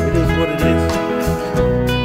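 Background music: a guitar-based country-style track with a steady bass pulse.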